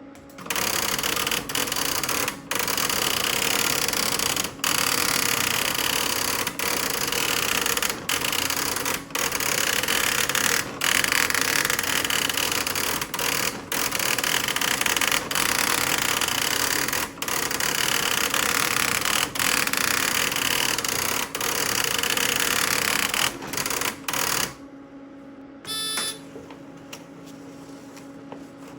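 Servo-driven daisy wheel printer printing a full page of text: a loud, dense, continuous rattle of character strikes, broken by brief pauses every one to two seconds, stopping suddenly about 24 seconds in. A short mechanical sound follows about a second and a half later.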